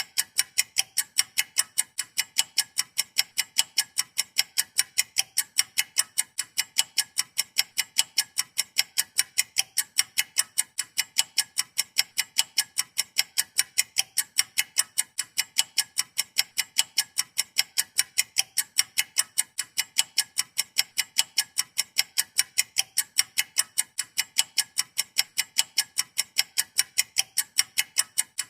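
Stopwatch ticking: sharp, evenly spaced clicks, several a second.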